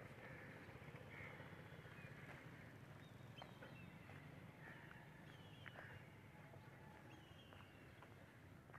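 Faint crows cawing, a few short harsh calls about a second in and again around the middle, with thin chirps from other birds over a steady low hum.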